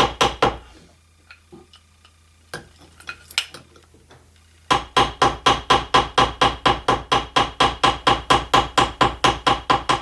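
Rapid light blows of the flat face of a jeweller's hammer on copper rivets, about four strikes a second, finishing off pins that have already been peened. The hammering stops briefly after the first half-second, with a few small taps and clicks, then starts again just before the middle and runs on steadily.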